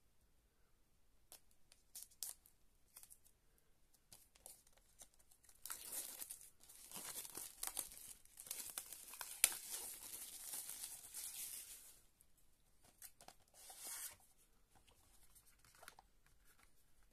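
Clear plastic shrink-wrap being torn and peeled off a SteelBook case, crinkling for about six seconds from a few seconds in, with light handling clicks before it and a shorter crinkle near the end.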